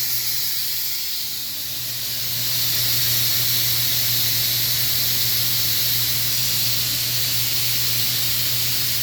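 Compressed air hissing steadily out of an opened drain valve on a compressed-air system, bleeding the pressure down so the standby air compressor will cut in. A steady low hum of other machinery runs underneath.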